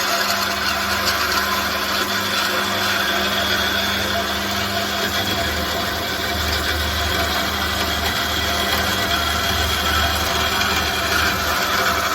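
FORTEX TX 210M horizontal metal band saw running with a steady motor hum.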